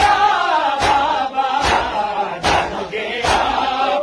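A male voice chants an Urdu noha (mourning lament) in a long, wavering held line. A steady beat of sharp strokes falls about every 0.8 seconds under it.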